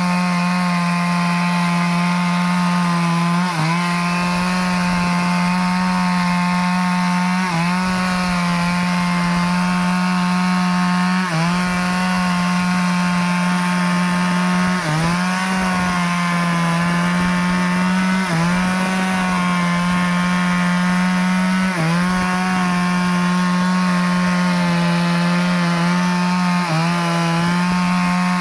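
Two-stroke Stihl chainsaw running at high revs while cutting teak wood, its engine note dipping briefly in pitch every three to four seconds as the chain bites.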